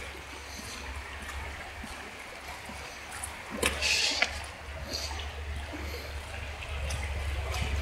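Shallow mountain stream flowing over rocks: a steady rush of water, with a brief louder rustle and a couple of knocks about four seconds in.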